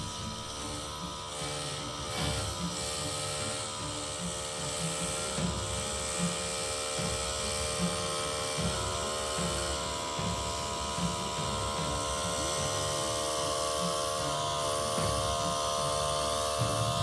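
Rotary snowplow train working through deep snow: the spinning rotary and the diesel locomotives pushing it give a steady mechanical whine, several steady pitches held over an uneven low rumble.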